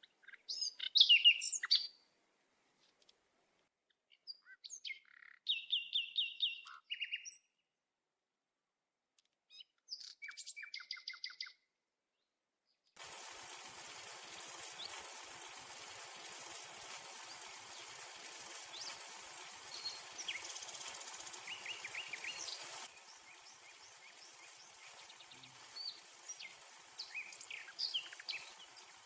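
Birds chirping and trilling in short bursts with gaps between them, the loudest about a second in. About halfway through, a steady hiss comes in under the calls and drops to a lower level near the end.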